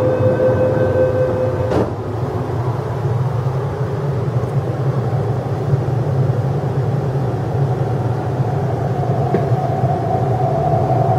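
MTR East Rail Line R-train doors closing: the door warning tone stops and the doors shut with a thud about two seconds in. The train then hums steadily and begins to pull away, its traction motors giving a slowly rising whine near the end.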